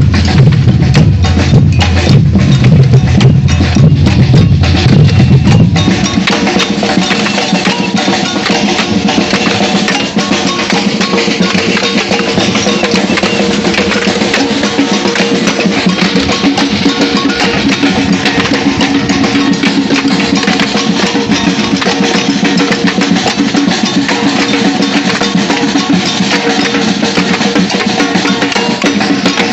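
Batucada samba percussion ensemble playing a dense, driving rhythm. The deep bass drums drop out about six seconds in, leaving the higher drums and percussion playing on.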